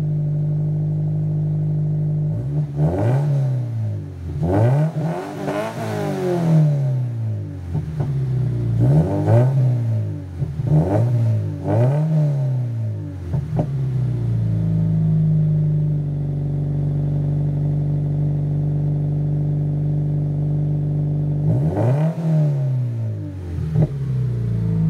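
Scion FR-S's 2.0-litre flat-four boxer engine, heard through a GReddy Remark muffler-delete exhaust, idling and then blipped about half a dozen times in quick succession, each rev rising and falling. It settles back to a steady idle and is revved twice more near the end.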